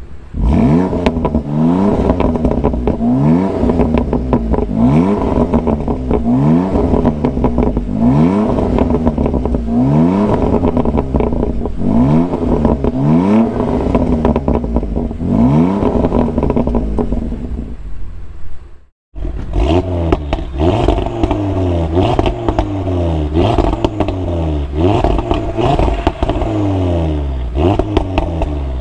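Sports car exhausts revved in turn, the Audi RS3's five-cylinder and the BMW M2 Competition's straight-six: one engine blipped up and back down about every second and a half, then after a sudden cut about two-thirds through, the other revved in quicker, closer-spaced blips.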